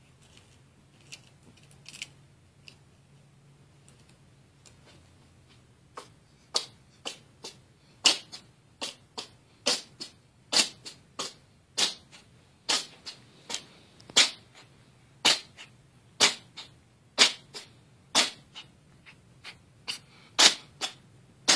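A cat sneezing over and over. There are a few faint sneezes in the first seconds, then from about six seconds in a fast run of more than twenty sharp sneezes, roughly one or two a second.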